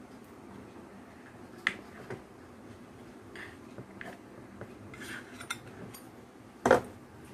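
Knife clicking and scraping against a ceramic plate while cutting a cake: scattered short taps, with one louder knock near the end.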